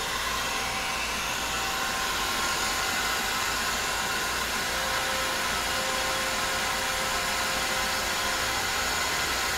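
Mazak CNC turning center running its circular-milling program: a steady, even rush of machine noise with faint steady tones as the spinning live-tool end mill is fed into the bore of the part.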